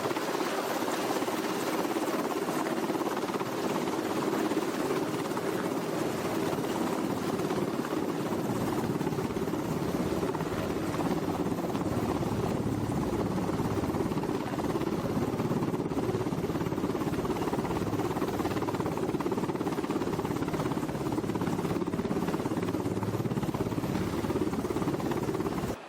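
Helicopter running steadily, a dense rotor-and-engine drone with no change in pitch.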